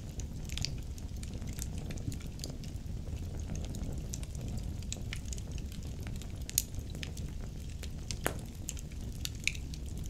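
Logs burning in a wood fireplace, crackling with scattered sharp pops over a low steady rumble of the flames; the loudest pops come about six and a half and eight seconds in.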